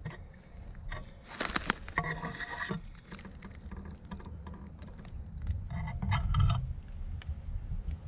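Footsteps and handling crackling through dry leaves and twigs, with a sharp burst of snapping about a second and a half in. A frog calls in two pulsed bouts, about two and six seconds in.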